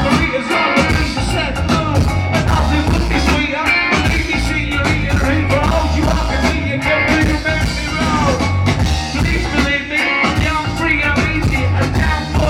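Live band playing loud, continuous music with heavy bass and drums.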